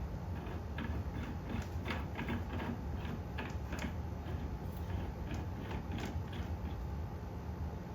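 A run of irregular light clicks and taps from ceiling fan parts being handled, over a steady low hum. The clicks come thickest in the middle and stop about a second before the end.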